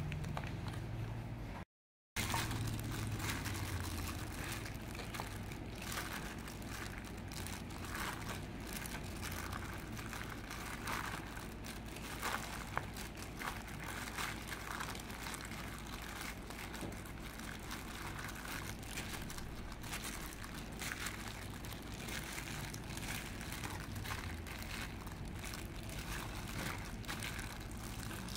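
Chicken pieces being tossed by a gloved hand in crispy-fry flour in a steel bowl: irregular soft rustling, crinkling and squishing, with a couple of sharper knocks about twelve seconds in, over a faint steady low hum.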